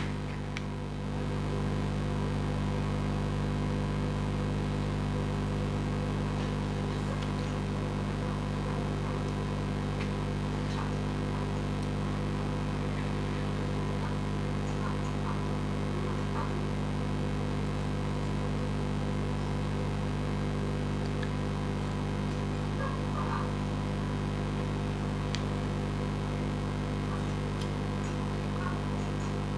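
A steady low hum made of several even tones that does not change, with faint light taps and clicks now and then and a sharp click right at the start.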